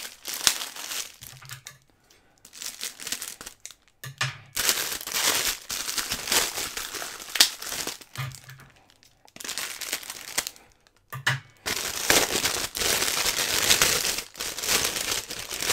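Packaging being handled and crinkled, in several irregular bursts separated by short pauses.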